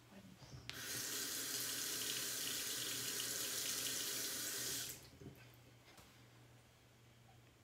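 Bathroom sink faucet turned on and left running for about four seconds, then shut off, with small knocks of handling before and after.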